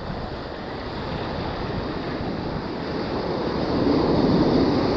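Ocean surf around a wading angler: the rush of water swells as a wave builds and breaks close by, loudest about four seconds in, then begins to ease near the end.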